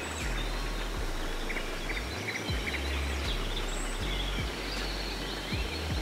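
Songbirds chirping and twittering in many short calls and trills, over a low, uneven rumble.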